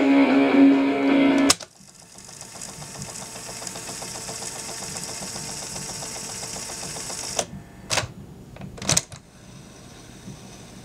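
A 1980 Fisher-Price cassette tape player plays a recording loudly through its small speaker until a button click about a second and a half in stops it. Its motor then whirs steadily as the cassette tape winds at speed, until several sharp clicks of its plastic push-buttons about seven to nine seconds in, after which a quieter mechanical hum remains.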